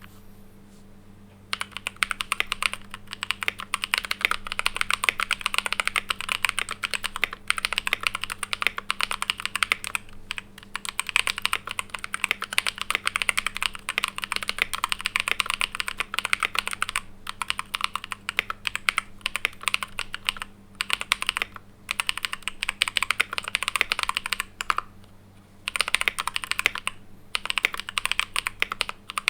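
Typing on a Keychron K4V2 mechanical keyboard with Invyr Holy Panda tactile switches, a steel plate, tape and foam mods, and PBT keycaps. Rapid, continuous keystrokes start about a second and a half in, with a few brief pauses.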